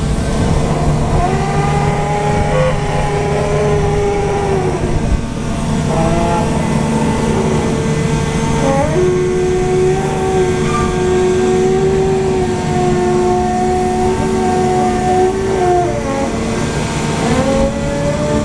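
The Grand Éléphant mechanical elephant's diesel engine and hydraulics running with a steady hum. Over it come long whining tones that glide up, hold for several seconds and drop away, one after another, while the raised trunk is worked.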